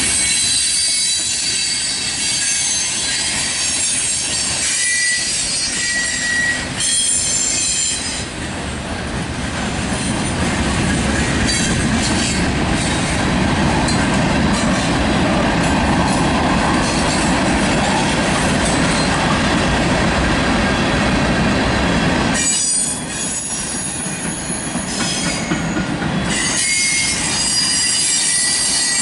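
Mixed freight train cars (tank cars, covered hoppers and boxcars) rolling past close by, their steel wheels rumbling and clattering on the rails. Brief high-pitched wheel squeals come now and then.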